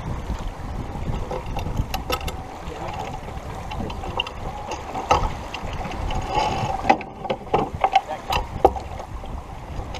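Wind and water rush aboard a racing sailboat, with scattered sharp clicks and knocks from the crew working lines and deck hardware, thickest from about seven to nine seconds in.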